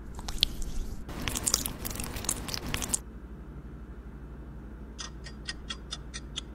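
Wet crackling and squelching of a thick green gel mask being poured onto a sheet mask on the face. It is densest for about two seconds. Near the end comes a quick even run of about eight short sharp clicks.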